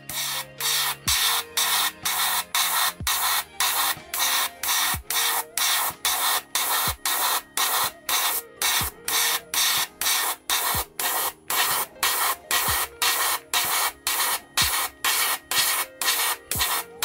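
Gundam Marker Airbrush spraying paint from a marker tip, its air hissing in short, evenly spaced bursts, about two and a half a second.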